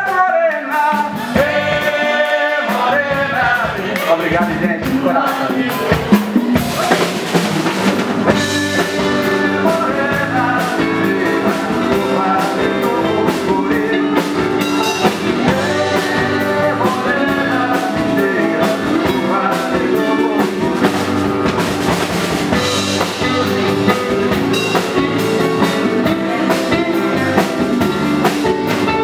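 Band music with a drum-kit beat and singing, playing steadily throughout.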